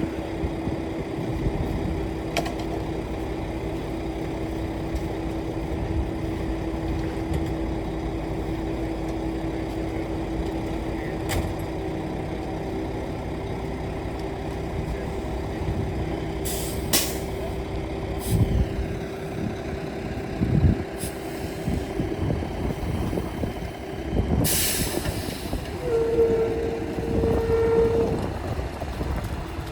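Concrete truck's diesel engine running steadily during a slab pour, with scattered knocks, a short loud hiss about 24 seconds in, and a held tone of about two seconds near the end.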